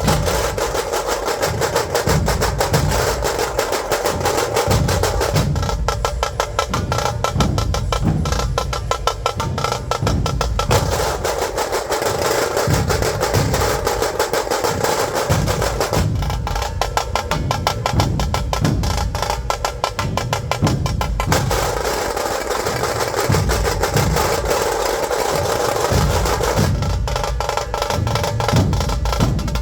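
Dhol drums played fast and loud, with deep bass strokes under a dense run of sharp, rapid hits. The rhythm swells into even denser passages several times.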